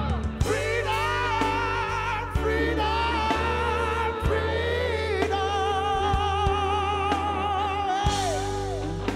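Live reggae band playing, with a singer over a steady bass line. The singer holds long notes with a marked vibrato, the longest held from about the middle of the stretch until near the end.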